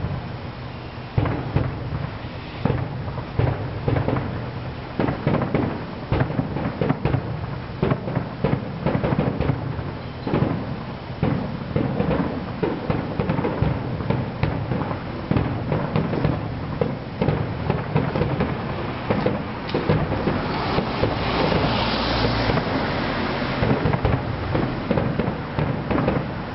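Fireworks display going off: many sharp bangs in quick succession that run together into a continuous rumble, growing denser about three quarters of the way through.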